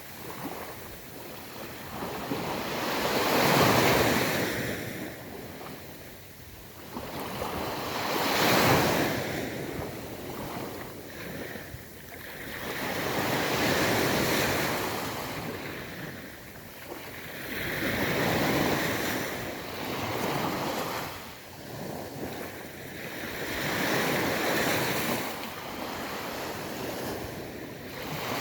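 Sea waves breaking and washing up a beach, swelling and falling back about every four to six seconds, with wind noise on the microphone.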